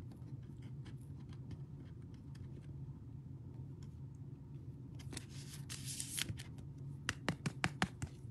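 Trading cards and a clear plastic card holder being handled on a table: faint sliding and rustling, with a quick run of sharp plastic clicks near the end, over a steady low hum.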